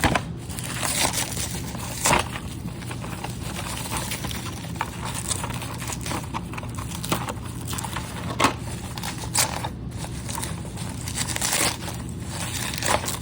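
Packaging being handled and torn open: irregular crinkling and crackling, with a few sharp snaps and knocks.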